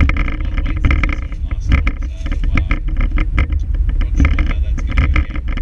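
Steady low road and engine rumble inside a moving car's cabin, with the crinkling and rustling of a plastic bag being handled.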